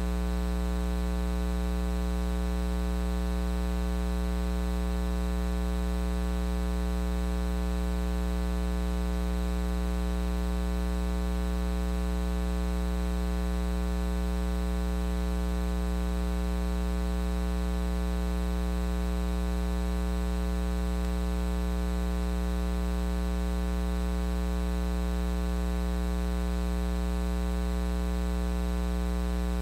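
Steady electrical mains hum with a buzzy row of even overtones, unchanging in pitch and level, standing in place of any voice.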